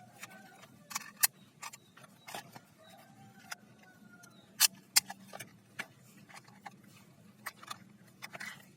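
Plastic toy blaster being handled and tried, its parts clicking and clacking in irregular sharp clicks, the loudest a couple of clacks near the middle.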